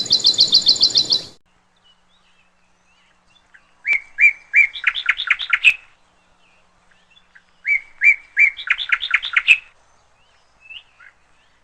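Songbird singing: a fast high trill that cuts off suddenly about a second in, then the same phrase twice, two clear notes followed by a quick run of rising notes, with the start of another near the end.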